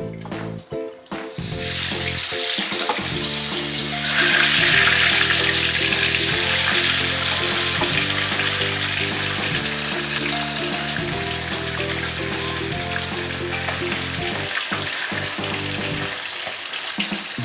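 Tilapia pieces frying in hot refined oil in a kadai. The sizzling starts about a second in as the fish goes into the oil, is loudest a few seconds later, then settles into a steady fry. Background music plays underneath.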